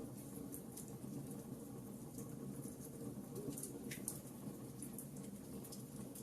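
Wood fire crackling in a fireplace: a steady low hiss with scattered sharp pops and snaps, one stronger snap about four seconds in.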